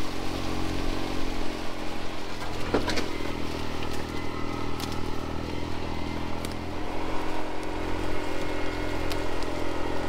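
Side-by-side utility vehicle's engine running steadily while it drives, with a few short knocks and rattles along the way.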